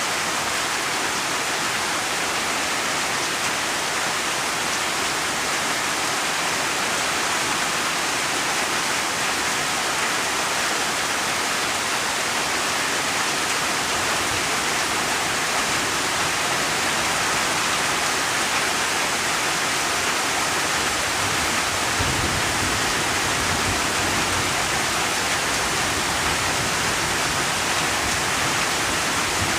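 Steady, heavy rainfall, a continuous even hiss of falling rain. A deeper low rumble joins in about two-thirds of the way through.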